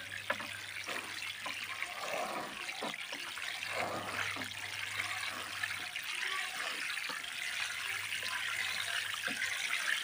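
Water spraying from a watering can's sprinkler rose onto soil in a fabric grow bag, splattering into the water pooled on the surface: a steady hiss with a few small splashes.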